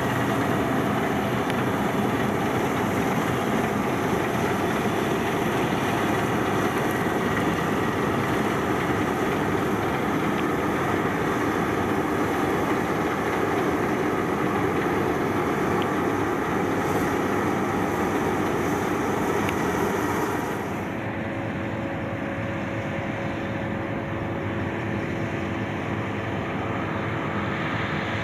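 Massey Ferguson combine harvester running steadily at work, a dense engine and machinery drone. About two-thirds of the way through it drops to a quieter, duller run with a steady hum.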